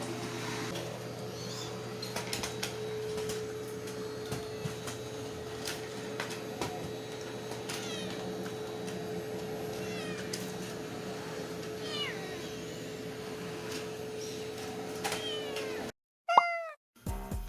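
Ragdoll cat meowing: several short falling meows, then one loud, drawn-down meow near the end, over a steady hum.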